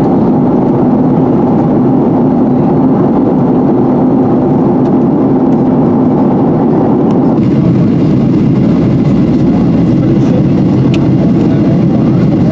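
Steady drone inside the cabin of a Boeing 737-800 in flight: CFM56-7B engine and airflow noise heard from a seat behind the wing. Its character shifts slightly about seven seconds in.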